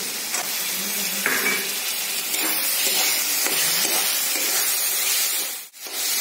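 Green peas, capsicum, tomato and onion masala frying and sizzling in hot oil in a kadai, stirred and scraped with a metal spatula. The sizzle breaks off briefly near the end.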